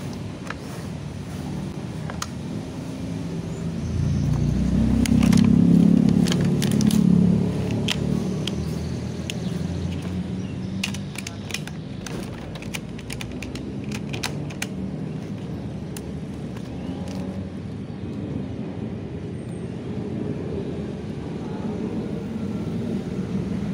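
Low rumble of road traffic, swelling as a vehicle passes about four to eight seconds in. Scattered light clicks come through the middle.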